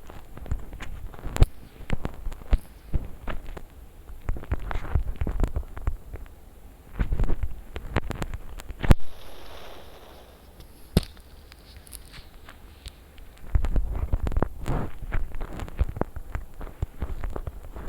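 Handling noise close to the microphone: irregular clicks, knocks and low thumps, with the sharpest crack about nine seconds in.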